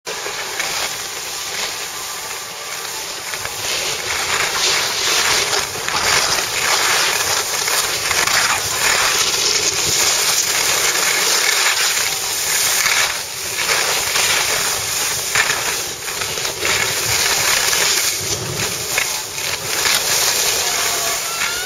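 Snowboards sliding and carving over packed snow: a continuous scraping hiss with frequent short surges of edge scrape, mixed with wind rushing over the microphone while riding.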